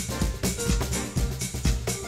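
Wooden cajón played with the bare hands in a steady groove of deep bass strokes and sharper slaps on the front panel, over a backing track with pitched notes.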